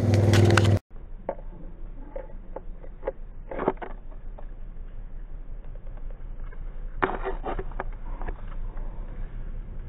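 A loud noise cuts off suddenly less than a second in. After that comes a quieter stretch of scattered crackles and rustles of dry leaves, twigs and palmetto fronds in scrub undergrowth, with short flurries of crackling about three and a half and seven seconds in.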